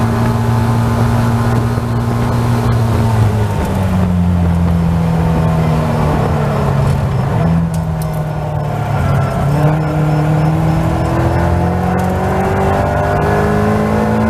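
Caterham Seven race car's four-cylinder engine at high revs, heard from the open cockpit. The engine note drops about three seconds in as the car slows for a corner, then rises steadily as the car accelerates hard out of it.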